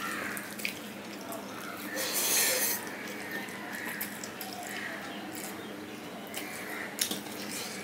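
Fingers squishing and mixing rice with curry on a steel plate, with wet squelching, small clicks and chewing sounds. There is a louder wet burst about two seconds in and a single sharp click near the end.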